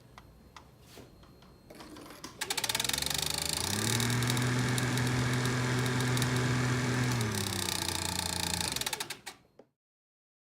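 Caterham Seven's heater blower fan switched on, spinning up with a rising whine, then running with a fast rattling clatter over a steady motor hum before it winds down and stops. The rattle is the fan touching the heater radiator, whose gasket has worn and flattened.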